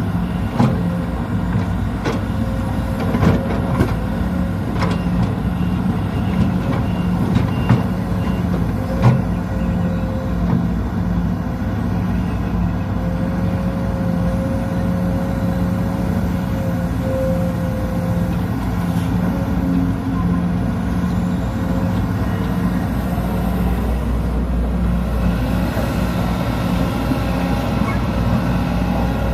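Sumitomo SH210 hydraulic excavator's diesel engine running steadily under work, with a steady whine above the engine note. Several sharp knocks come in the first nine seconds or so, and the low rumble grows heavier near the end.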